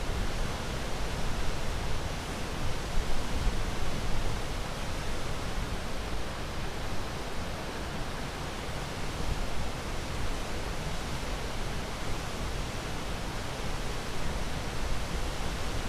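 Ocean surf: a steady, even rushing hiss with only slight swells in level and no separate breaking waves standing out.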